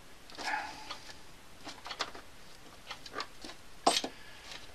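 Scattered light clicks and taps of small parts being handled on a workbench, with a brief rustle near the start and the sharpest click about four seconds in.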